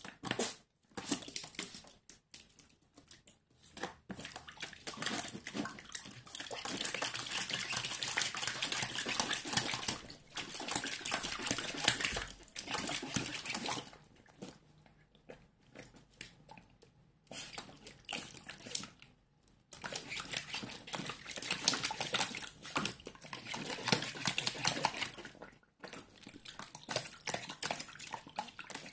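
A Schipperke puppy splashing water in a shallow plastic tray, slapping it with its paws and biting at it, in stretches of a few seconds broken by short pauses.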